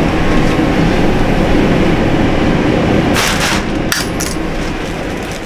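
Steady loud roar of the gas-powered insulation vacuum running, with a few short bursts of plastic garbage bag rustling about three to four seconds in. The roar fades away near the end.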